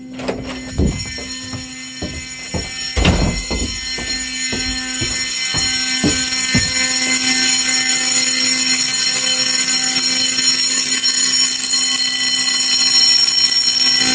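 Simplex 4051 fire alarm horn sounding steadily, getting much louder over the first several seconds. A series of knocks and thumps sounds over it during the first seven seconds or so.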